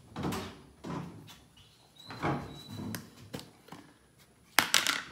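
Rummaging in a kitchen cupboard: a string of separate scraping and knocking noises as containers are moved about, then a plastic flour tub and its lid handled, with a loud plastic clatter near the end.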